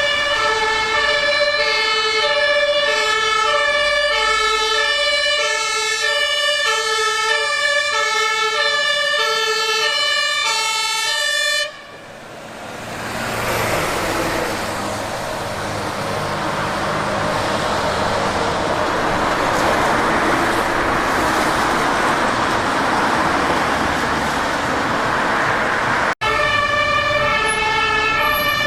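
Fire engine two-tone siren (Martinshorn) switching steadily between a high and a low note, about one high-low pair a second. About twelve seconds in it gives way to loud engine and road noise from a fire truck that builds steadily. The two-tone siren comes back near the end.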